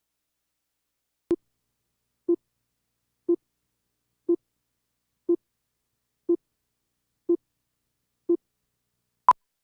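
Slate countdown beeps: a faint click, then seven short, low beeps exactly one second apart, then a single louder, higher-pitched beep a second later marking the end of the countdown.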